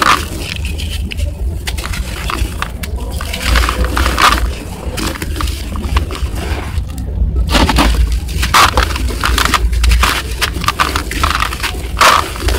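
Lumps of dry red dirt being crushed and crumbled by hand in a bucket: irregular gritty crunching and crackling as the clods break, with crumbs falling back onto the loose dirt. A steady low rumble runs underneath.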